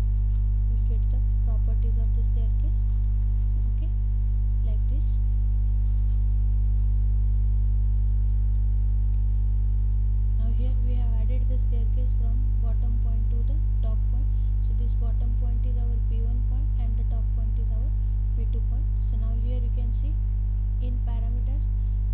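Steady electrical mains hum with a stack of low overtones, loud and unchanging throughout.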